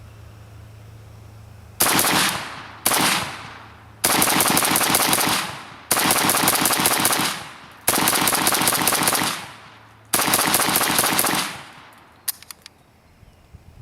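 Waffen Werks/DDI AK-74 rifle firing 5.45×39 mm 7N6 rounds in rapid fire, dumping a 30-round magazine: six quick strings of shots, two short ones and then four longer ones, followed by a few faint clicks.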